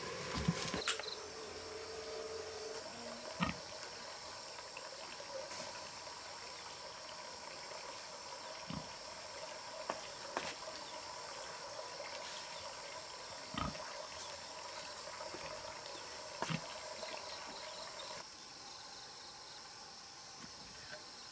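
Insects chirring steadily, with about six short knocks and clicks spread through it.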